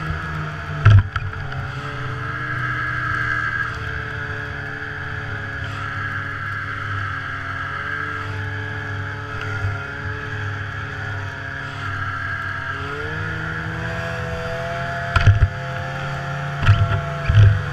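Snowmobile engine running at a steady cruising speed on the trail, its note rising in pitch after about 13 seconds as it speeds up. A few short low thumps sound, one about a second in and several near the end.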